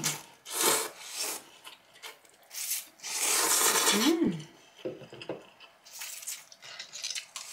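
Eating noises at a meal of pasta and kimbap: a series of noisy rubbing, scraping bursts of mouth and cutlery sounds, with a short hummed 'mm' about four seconds in.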